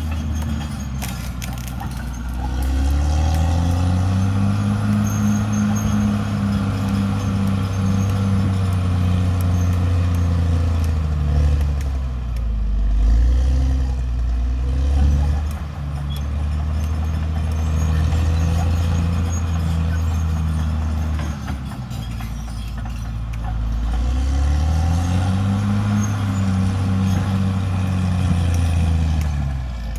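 Caterpillar D6R XL bulldozer's diesel engine working under load. Its pitch rises as it revs up about two seconds in and again near the end, with a few brief dips in between.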